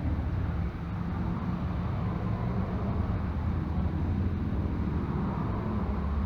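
Gas burner of a Devil Forge melting furnace running with a steady, low roar.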